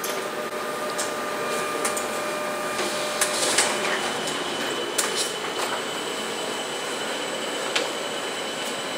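UTAX colour laser copier running as it prints its colour registration charts: a steady mechanical whir with several scattered clicks and ticks of the paper feed.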